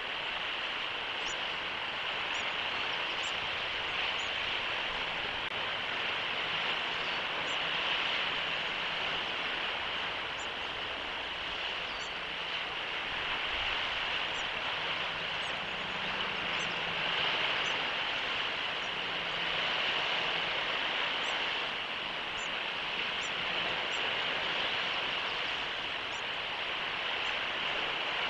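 Steady outdoor background noise, like an open-air hiss, with faint, short, high chirps scattered throughout.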